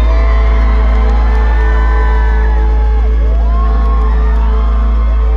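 Live band music at a concert over a heavy, steady bass, with the audience whooping and cheering.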